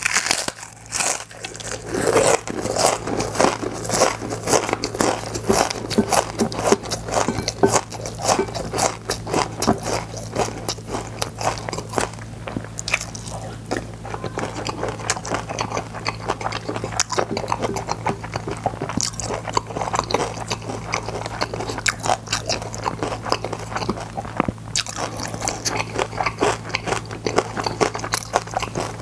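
Close-miked crunching and chewing of crispy gim-bugak, fried seaweed chips coated in glutinous rice and sesame, with dense crackles running throughout. A low steady hum lies underneath.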